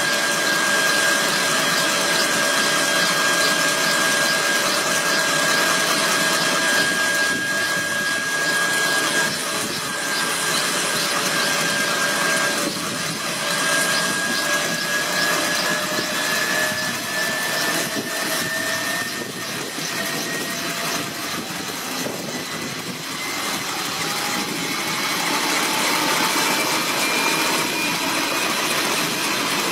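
Kaman K-MAX helicopter running on the ground with its intermeshing rotors turning: a steady turbine whine over a rushing noise. The whine rises slowly in pitch through the second half.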